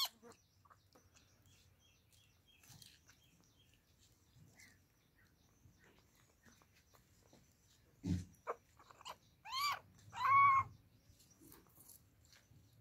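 A kitten meows twice, each meow rising and falling in pitch. Before the meows come a low thump and a few short squeaks, and before that only faint scattered clicks.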